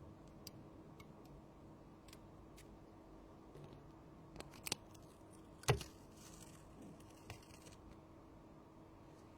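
Light, scattered clicks and taps of small tools and parts being handled on a workbench, with one sharper click a little past halfway, over a faint steady hum.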